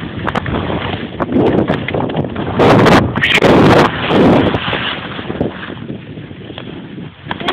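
Wind rushing over the microphone and skis scraping over packed snow during a downhill run on skis, rising and falling in uneven surges, loudest around the middle.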